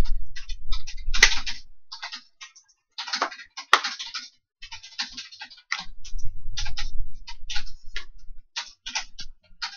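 Plastic disc cases and discs being handled: a quick string of small clicks, snaps and scrapes as a disc is pressed back onto its case hub and the cases are shut and shuffled, with a couple of louder snaps and dull handling bumps.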